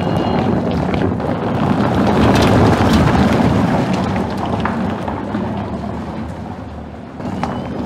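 Tyres of an electric SUV, the Skoda Enyaq RS iV, rolling slowly over cobbles and loose stone with a rough crunching hiss and no engine note. It swells as the car passes close, about two to three seconds in, then fades as it moves off.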